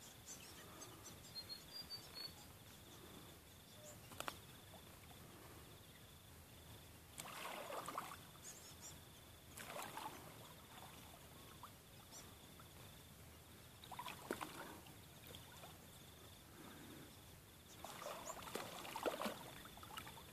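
Faint splashing of water in about four short bursts several seconds apart, as an Australian pelican lunges at a hooked carp near the bank.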